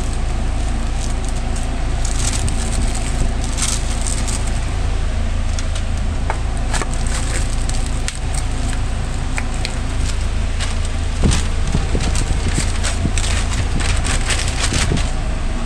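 Paper and foam packaging handled: checkered burger paper crinkling as it is wrapped, a foam clamshell box closing, and a brown paper bag rustling, with scattered crackly clicks. A steady low mechanical hum from the food truck's kitchen equipment runs underneath.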